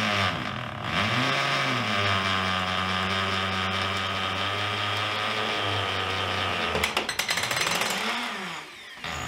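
Power drill turning a three-foot flexible drill bit down through a wood floor and wall top plate. The motor speeds up and slows several times as the trigger is feathered, then holds a steady speed under slow, steady pressure. About seven seconds in a fast rattling clatter joins it, and the motor winds down just before the end.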